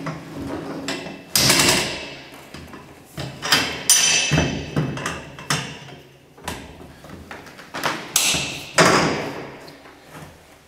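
Aluminium load-lock cargo bars being ratcheted and shifted against the trailer's inner wall, pressing the pulled-away wear band back into place: a string of sudden metal clunks and clacks, about half a dozen, each dying away quickly.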